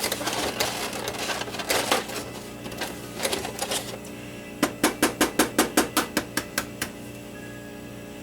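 Kitchen handling noises: rustling and light clatter, then a quick run of about a dozen sharp taps, about five a second, that stops suddenly.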